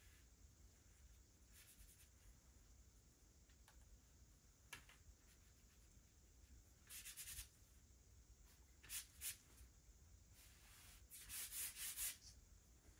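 Faint scratching strokes of a sketching tool on a drawing surface over near-silent room tone: a few short strokes, then a longer run of strokes near the end.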